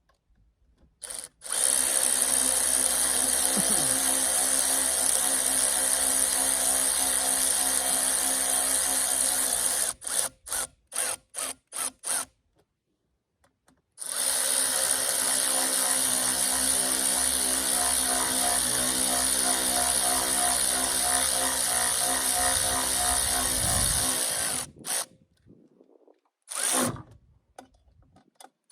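Cordless electric ratchet running exhaust bolts in on a chainsaw: two long steady runs of about eight and ten seconds, each followed by a few short trigger blips as the bolt bottoms out.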